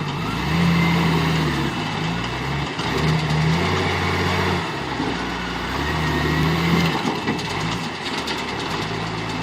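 Heavy machine's engine running steadily with mechanical noise, its note rising and falling every second or so.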